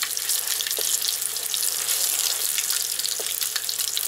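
Meat-filled blini frying in a pan: a steady sizzle full of fine crackling, with a couple of sharper pops.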